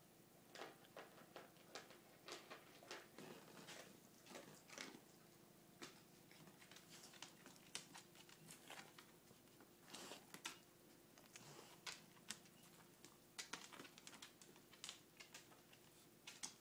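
Faint, irregular clicks and scratches, some in quick runs, over a low steady hum.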